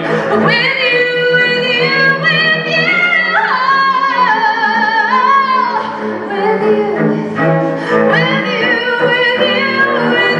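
A woman singing a pop song live into a microphone, holding long notes with vibrato, over a bowed cello accompaniment playing sustained low notes.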